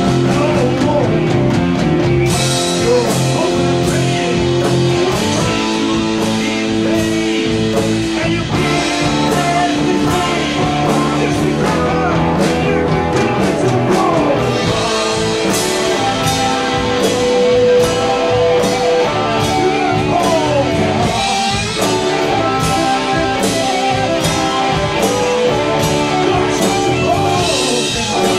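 Live blues-rock band playing: electric guitars, bass guitar and a drum kit with steady cymbal hits, with a male singer's voice over them. A few bent notes slide up and down in the middle.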